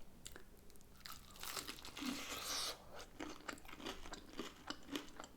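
Close-up eating of an air-fried hot and spicy chicken wing. A crunchy bite and tear comes about a second and a half in and lasts over a second, followed by chewing with many small quick clicks.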